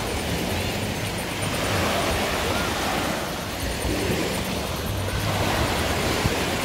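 Steady rush of sea surf and wind at the shoreline, an even noise with no distinct events.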